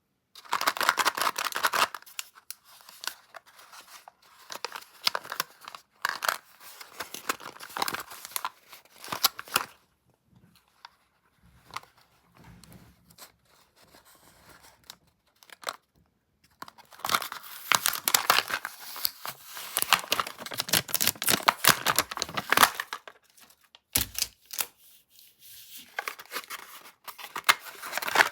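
Candy packaging being torn open and crinkled by hand, in crackly bursts with quieter handling between them.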